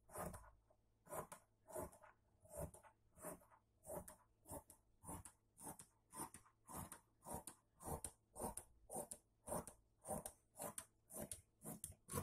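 Tailoring scissors snipping through cloth in a long straight cut, an even run of crisp snips about two a second.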